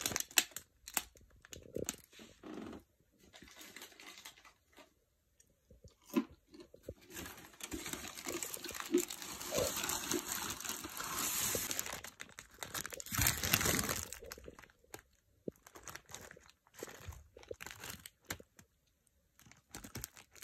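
Paper takeaway bag and food wrapper crinkling and rustling as a hand rummages inside, on and off with short quiet gaps, loudest about halfway through.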